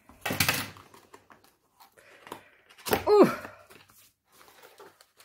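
Cardboard box and packaging being handled and opened: a burst of tearing or cutting noise near the start, then scattered clicks and rustles. About three seconds in, the loudest sound is a short squeak falling in pitch.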